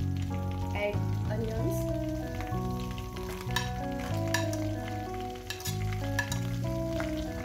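Sliced onions sizzling as they go into hot butter in a steel kadhai and are stirred with a wooden spatula, with sharp knocks and scrapes of the spatula several times from about three seconds in. Background music with held notes runs underneath.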